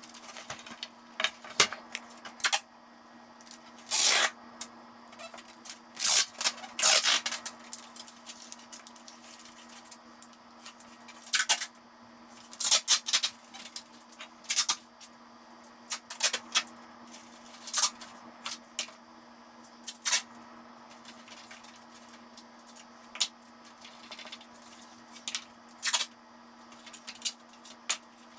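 Sheathing tape pulled off its roll in short tearing rips, many times at irregular intervals, as it is laid along wooden boards. A steady low hum runs underneath.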